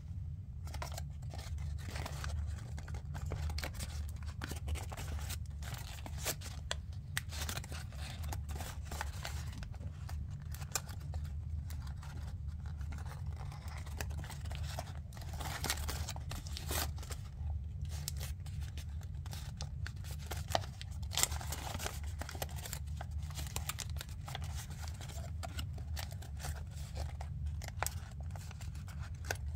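Origami paper being creased and shaped by hand, rustling and crackling in irregular crisp clicks and crinkles over a steady low hum.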